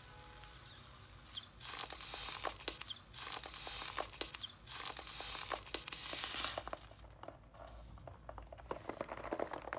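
Metal potato masher pressing and stirring thick foamy slime in a plastic tub: wet crackling and popping that starts about a second and a half in, runs densely for several seconds, then thins to scattered small clicks.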